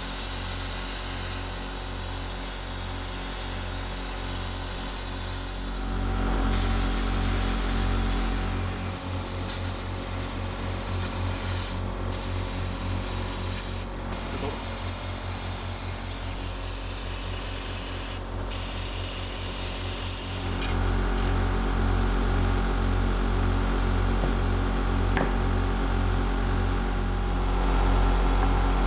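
A workshop tool running with a steady loud hiss over a low pulsing hum. The hiss cuts out briefly three times midway.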